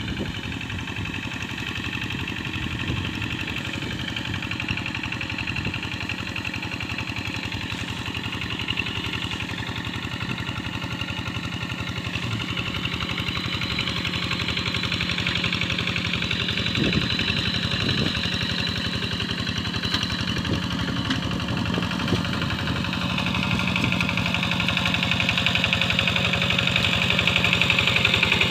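Rice-paddy plowing tractor's engine running steadily with a rapid, even firing beat, growing louder over the last several seconds.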